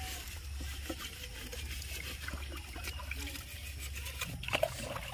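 Pond water sloshing and dribbling as a small plastic container is dipped in and scooped full by hand, with a steady low hum underneath; the water sounds get briefly louder near the end.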